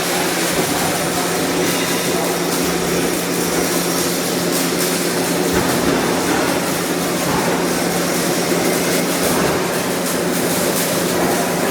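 Welding arc burning continuously on a carbon steel pipe joint, a steady hissing noise over a constant low hum from the welding equipment.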